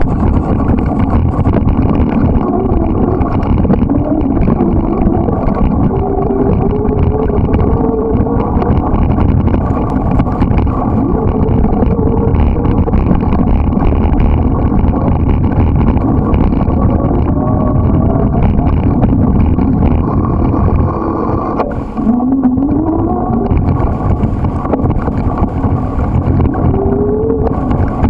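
Loud, steady rumble of wind buffeting the microphone of a camera on a moving bicycle, over the noise of tyres on gravel. Now and then a vehicle engine rises in pitch, most clearly about three quarters of the way in.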